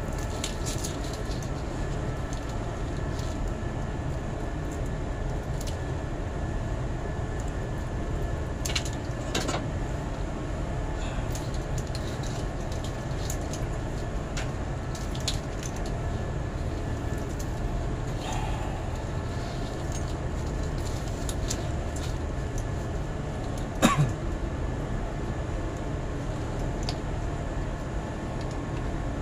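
Steady low mechanical rumble, with scattered sharp clicks and one louder knock late on from hands working among the wiring and conduit of the control box.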